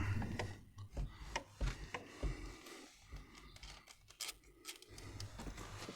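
Spanner clicking and scraping on a brake slave cylinder mounting bolt in a tight space, with irregular sharp metallic clicks and taps as the bolt is worked loose.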